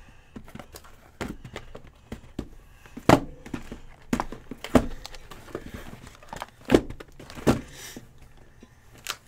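Sealed cardboard hobby boxes of trading cards being picked up and set down on a table: about seven dull thunks at uneven intervals.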